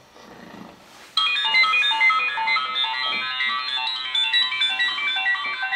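Alarm ringtone playing a quick, high melody of short notes, starting suddenly about a second in.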